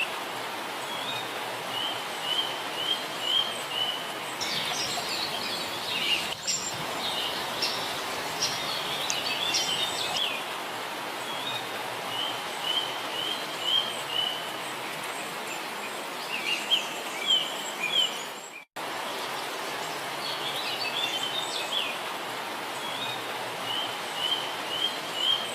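Wild birds singing over a steady hiss. One bird repeats a short run of about five quick chirps every ten seconds or so, while others give more varied chirps in between. The sound drops out for an instant about three-quarters of the way through.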